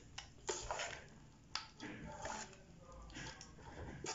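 A spoon stirring cooked rice and dry fruits in a metal pot: soft scrapes and a few light clicks against the pot.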